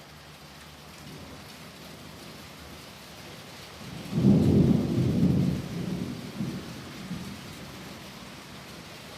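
Steady rain hissing, with a peal of thunder about four seconds in: a low rumble that rolls for a couple of seconds and fades away.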